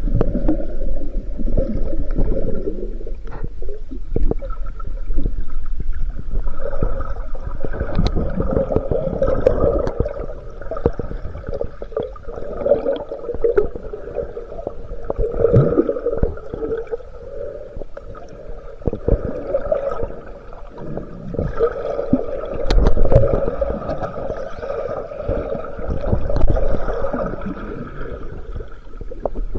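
Muffled underwater water noise heard through a waterproof camera housing: an uneven rumble and sloshing that swells every few seconds, with scattered sharp clicks and knocks as the camera is moved through the algae.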